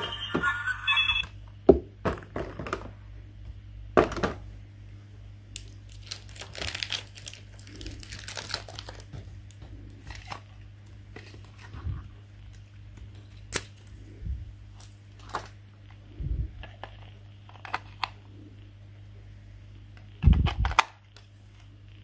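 Small plastic toys and a clear plastic blister tray being handled: scattered clicks, taps and crinkles, with a toy's electronic tune cutting off about a second in and a louder thump near the end, over a steady low hum.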